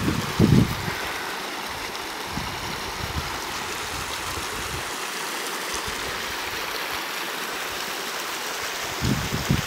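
Mountain creek running over granite slabs: a steady, even rush of water. Low buffeting of wind on the microphone comes briefly about half a second in and again near the end.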